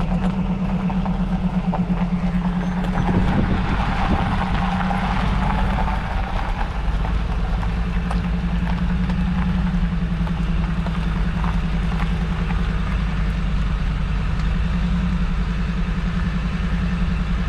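A vehicle's engine and road noise heard from inside the cab while driving: a steady low drone, with a swell of rushing noise from about three to six seconds in.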